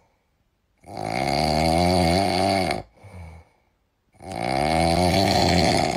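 Sleeping kitten snoring: two long snores of about two seconds each, with a short faint breath between them.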